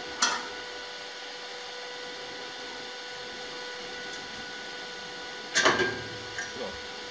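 A steady machine hum with several fixed whining tones, broken by a short click at the start and one sharp knock about five and a half seconds in.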